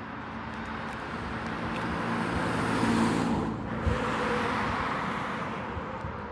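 A car passes by on the road: its tyre and engine noise swells to a peak about three seconds in, then fades away.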